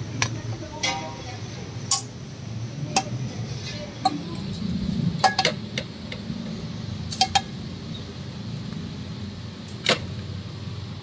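A wire grill basket clinking and knocking against a metal karahi as grilled chicken pieces are shaken out into it: about nine sharp metallic knocks at uneven intervals, some ringing briefly, over steady low background noise.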